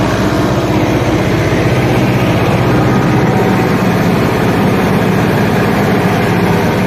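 John Deere 6403 tractor's four-cylinder diesel engine running steadily under load while pulling a subsoiler through the soil, heard from the open operator's seat.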